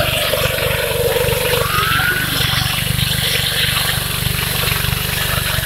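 Engine-driven asphalt core drill running steadily with a fast even engine beat as its water-cooled core barrel cuts into the road.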